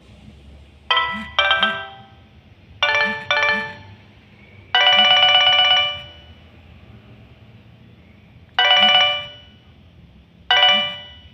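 Nokia 6080 mobile phone playing a ringtone through its small speaker: a chiming tone melody of two pairs of short notes, then a held, quavering note about a second long, then single notes after a pause.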